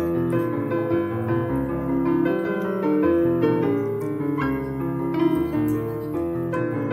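Background piano music: a steady run of piano notes over a slowly changing bass.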